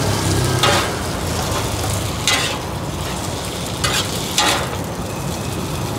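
Bột chiên (rice-flour cake with egg) frying in oil on a flat pan: a steady sizzle, broken by four short scrapes of a metal spatula against the pan.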